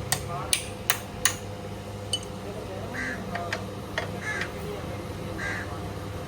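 Sharp knocks of hand tools on metal, four in quick succession in the first second and a half, then a few lighter taps, with a crow cawing several times over a steady hum.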